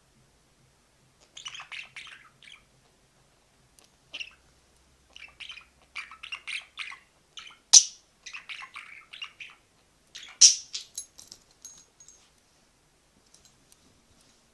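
Pet budgerigar chirping and chattering in short irregular bursts, with two sharper, louder notes around the middle.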